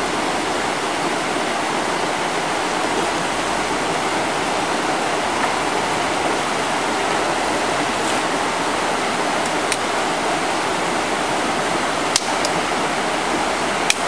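Shallow rainforest creek running over rocks: a steady rush of flowing water. A couple of short clicks come through near the end.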